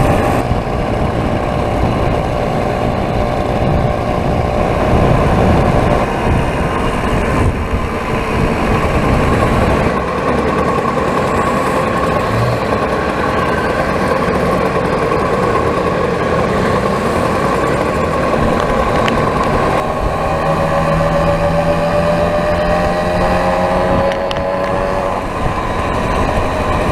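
Small vintage two-stroke moped engines running at riding speed, their pitch rising toward the end as a rider speeds up, with wind rushing over the microphone.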